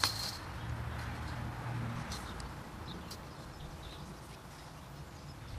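14-gauge welded wire fencing being worked onto a steel T-post: a sharp metallic click with a brief ring right at the start, then a few lighter ticks about two and three seconds in.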